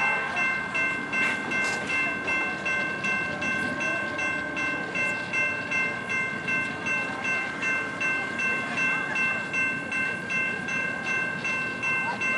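Railroad grade-crossing bell ringing in an even rhythm of about two strokes a second, over the rumble of an approaching commuter train.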